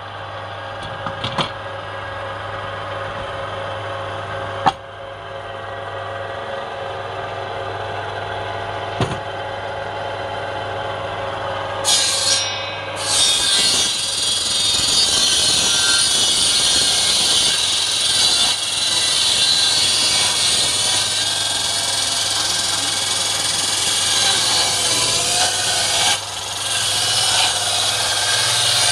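Table-mounted circular saw running, a steady hum with a few sharp knocks. About twelve seconds in, the blade starts cutting into a palm log, a loud high hissing rasp that carries on.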